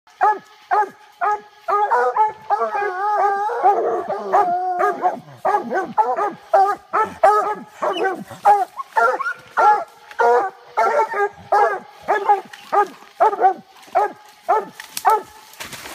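Coonhounds barking treed, a steady run of about two short barks a second with a few drawn-out bawls mixed in early on, the hounds baying up at the quarry they have treed.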